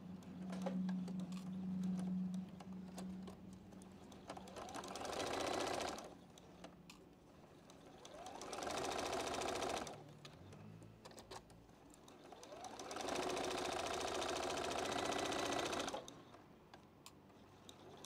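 Juki domestic sewing machine stitching pieced patchwork in three runs of a few seconds each, each run speeding up as it starts and stopping short, with small clicks in the pauses between runs.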